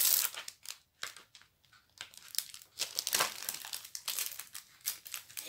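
Crinkling and crackling of the plastic protective film on a rolled diamond painting canvas as it is handled and flattened: a dense burst at the start, a lull of about a second, then scattered crackles.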